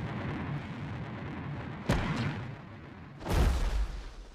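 Lander retro rockets firing with a dense, low rumble. A sharp bang comes about two seconds in and a heavier boom a little over a second later, then it dies away near the end.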